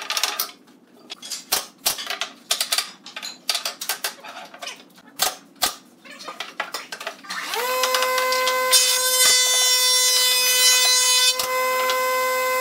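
Wooden knocks and taps as a hammer and a pneumatic brad nailer fasten the corners of a pine frame, a few of them heavier. About seven and a half seconds in, a steady pitched hum starts with a brief rise in pitch, the air compressor feeding the nailer starting up, with a few more clicks over it.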